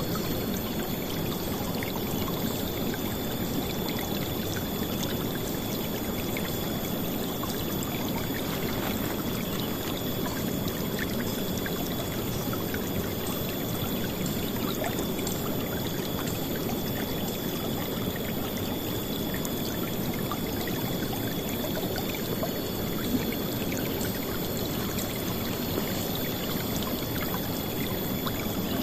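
River water flowing and splashing in a steady, loud rush that does not let up, with a faint steady high tone above it.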